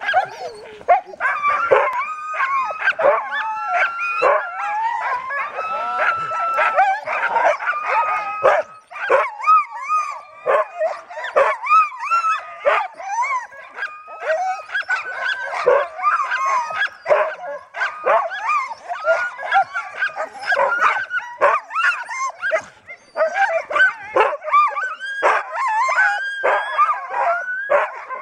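A team of harnessed sled dogs barking, yelping and howling together in an unbroken din of many overlapping calls, some rising and some falling in pitch. It is the excited clamour of sled dogs hitched to the gangline and eager to start a run.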